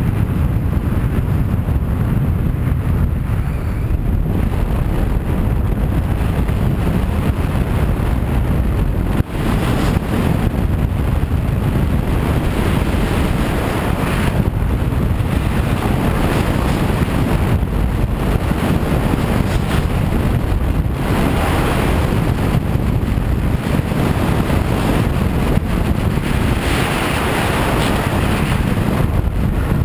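Wind buffeting an action camera's microphone held out on a selfie stick during a fast ski descent, a steady low rumble, with skis hissing and scraping over packed snow that swells in places as the skier turns.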